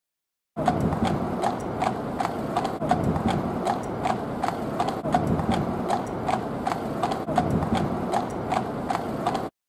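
Horse hooves clip-clopping on a paved road as a horse-drawn carriage passes, a steady rhythm of hoof strikes over a low rumble. The sound starts suddenly about half a second in and cuts off just before the end.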